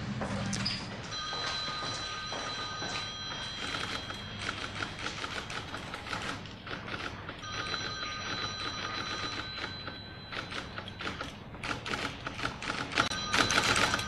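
A telephone ringing in repeated spells, starting about a second in, pausing, ringing again, and starting once more near the end, over a steady clatter of typewriter keys.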